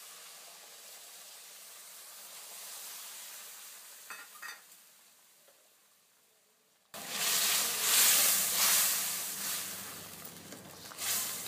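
Boiling water poured onto hot roasted semolina and vegetables in a wok hisses and bubbles, fading away over several seconds. About seven seconds in, a much louder sizzling and scraping starts suddenly as a spatula stirs the wet mixture in the pan.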